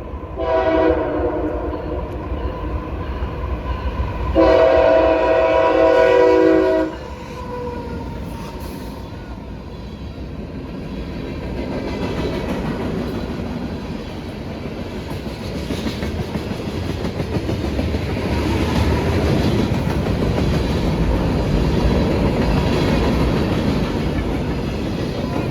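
CSX freight locomotive's air horn sounds twice, a short blast and then a longer one a few seconds later. After that, a manifest freight train rolls past with a steady rumble of wheels on rail and some clickety-clack, growing louder in the second half.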